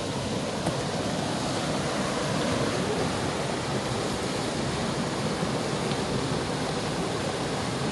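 Fast river water rushing over rocks: a steady, even hiss.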